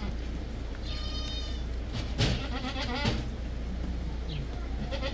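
Goats bleating, with one wavering bleat lasting about a second, the loudest call, right after a sharp knock about two seconds in.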